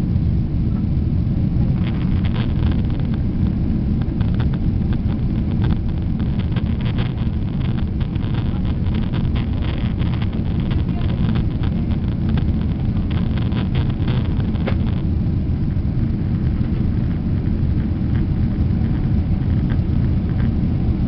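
Steady low roar of an airliner cabin in the climb after takeoff: jet engines and rushing airflow, with faint scattered ticks through the middle.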